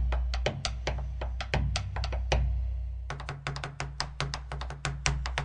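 Background music with a quick, clicking percussion beat, several strikes a second, over a steady bass line.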